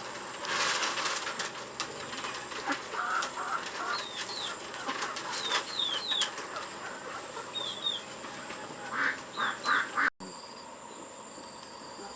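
Farmyard poultry: a burst of wing flapping near the start, then repeated pairs of short, falling high chirps and short clucking or quacking calls. A steady high-pitched tone runs underneath, and the sound changes abruptly about ten seconds in.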